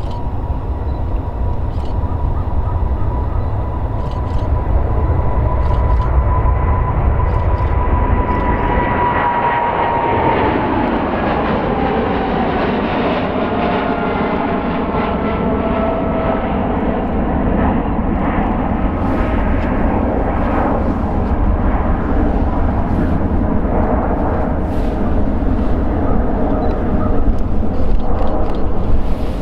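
Boeing 777 freighter's two GE90-110B1L turbofans at takeoff thrust: a steady high fan whine over a deep rumble. About ten seconds in the whine slides down in pitch as the jet passes, and the loud rumble carries on as it climbs away.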